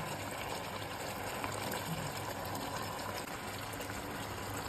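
Watery chilli-chicken sauce boiling in a frying pan: a steady bubbling of simmering liquid.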